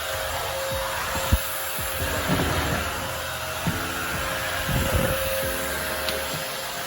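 Goblin GSV501W-19 cordless stick vacuum cleaner running steadily, a constant motor whine over rushing air, with a few short low knocks as the head is moved about.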